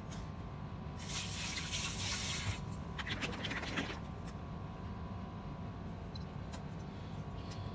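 A short rush of running water, like a tap, starting about a second in and lasting about a second and a half, followed by about a second of crackly splashing. A steady faint hum runs underneath.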